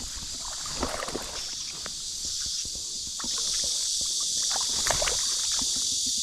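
Steady high chorus of summer insects, louder from about three seconds in, with scattered clicks and light splashing as a hooked bass is played at the water's edge.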